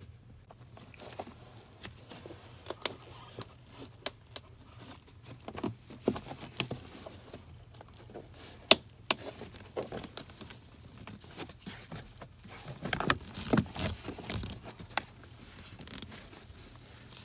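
Acura ZDX's plastic door sill trim being pulled up off its pin clips: scattered irregular clicks and knocks with light handling rustle, the sharpest click about nine seconds in and a cluster near the end.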